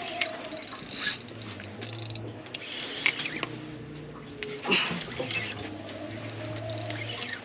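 Spinning reel being cranked fast while jigging with a heavy rod: a mechanical whirring with sharp clicks, over a low steady hum.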